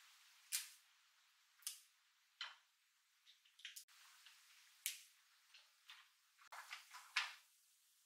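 Green chili pepper stems being snapped off by hand: faint, crisp snaps, irregular and a little more than one a second, bunching together near the end.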